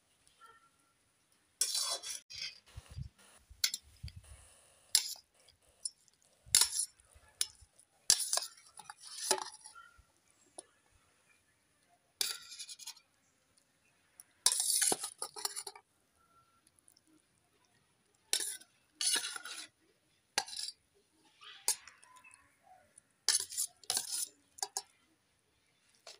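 A metal serving spoon scraping and clinking against a steel wok and stainless-steel bowls and plates as food is dished out. The scrapes and clinks come in scattered strokes with short gaps, plus a few low knocks a few seconds in.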